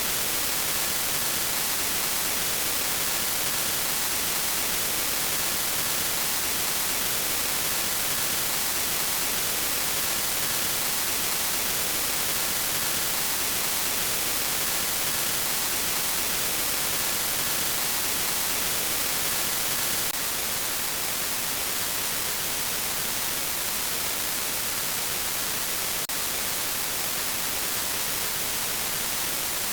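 Steady static hiss like white noise, brightest in the high end. It drops slightly in level about twenty seconds in, with one faint click a few seconds later.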